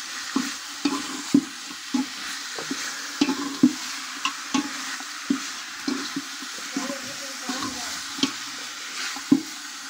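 A metal spoon stirring chicken pieces sautéing in oil in an aluminium pot: a steady sizzle broken about once or twice a second by scrapes and clinks of the spoon against the pot.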